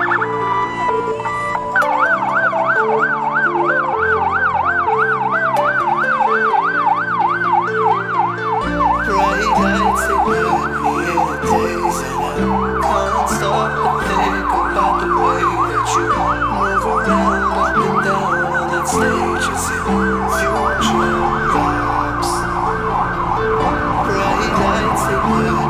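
Police car siren sounding a fast warble, its pitch rising and falling several times a second without pause, over background electronic music whose beat comes in about a third of the way through.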